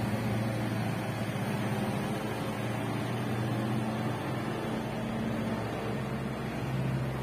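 A steady low mechanical hum from a running motor, whose pitch shifts slightly a couple of times.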